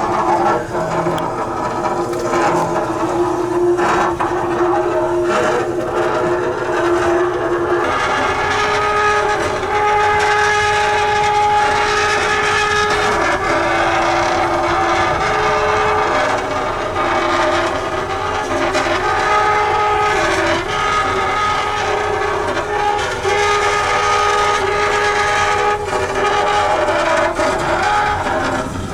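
Ship KAMINISTIQUA scraping as it enters a Welland Canal lock: sustained screeching made of several steady squealing tones that shift in pitch, over a rough scraping noise. It gets denser and harsher about eight seconds in. This is serious scraping, not normally heard on a lock entry.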